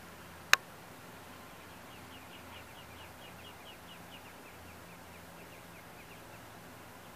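Muscovy ducklings peeping: a run of faint, short, high notes, about three or four a second, starting about two seconds in. One sharp click about half a second in is the loudest sound.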